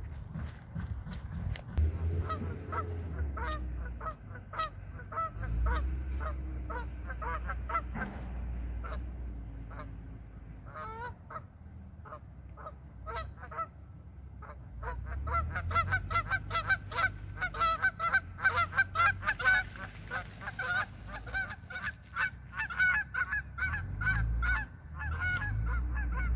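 A flock of geese honking, many overlapping short calls that grow thicker and louder in the second half, over a low rumble.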